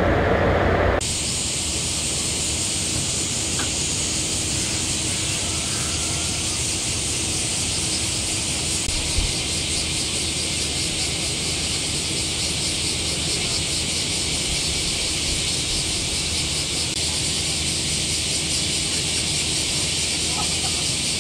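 A steady, even high-pitched hiss over a low rumble and a faint steady hum, after an abrupt change about a second in from a louder, lower rumble. A single short knock about nine seconds in.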